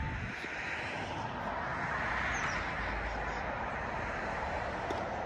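Distant engine noise of something passing, a broad rushing sound that swells to its loudest about two to three seconds in and then eases off.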